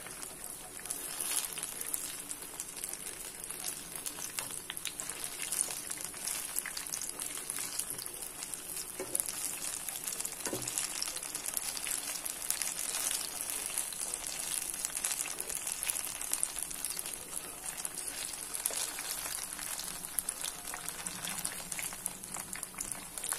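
Battered banana fritters frying in hot oil in a frying pan: a steady sizzle and crackle of bubbling oil.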